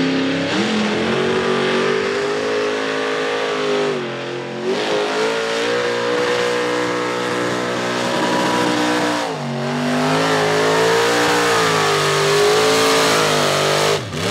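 Pulling truck's engine running at high rpm under heavy load as the pickup drags a pulling sled, its pitch wavering up and down as the truck hops and bounces. The engine note changes abruptly twice.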